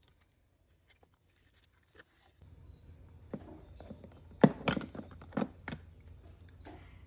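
Cat-snack packaging being handled, crinkling and tearing, with a few sharp rustles between about three and six seconds in after some soft clicks. A low hum comes in about two and a half seconds in.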